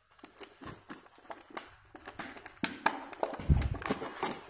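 Stiff clear plastic blister packaging crackling and clicking in the hands as a multimeter's test leads are pulled out of it. The handling is a quick run of irregular crackles that grows louder about halfway through, with a few low thumps.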